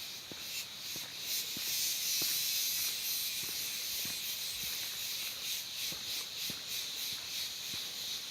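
Footsteps on a forest trail, a string of soft irregular steps, under a steady high-pitched hiss that swells about two seconds in.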